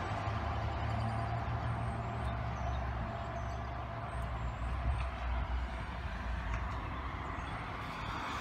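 Steady low hum of an idling motor-vehicle engine, with a light outdoor noise haze.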